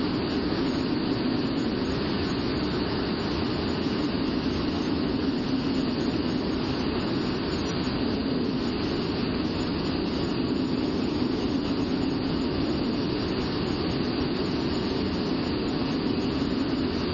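Steady jet engine and airflow noise of a Blue Angels F/A-18 Hornet, heard from inside the cockpit: an even, unbroken rush with a strong low hum underneath.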